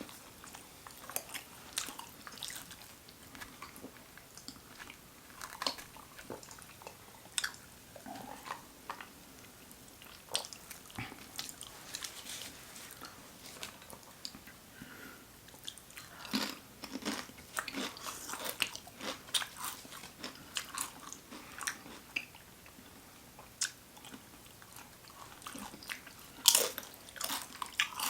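People biting into and chewing toasted sandwiches close to the microphone: irregular crunchy bites and chewing clicks, with louder runs of bites about sixteen seconds in and again near the end.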